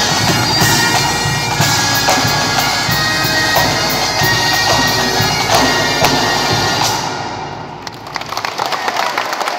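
Breton bagad bagpipes playing with their drones over snare drums, with a drum stroke about once a second. The music dies away about seven seconds in, and applause starts near the end.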